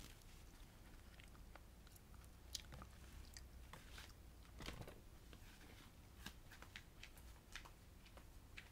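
Faint, irregular close-up clicks and crackles of the last chewing and of the plastic sheet, tissue and plastic food container being handled as the meal is cleared, with a slightly louder cluster about four and a half seconds in.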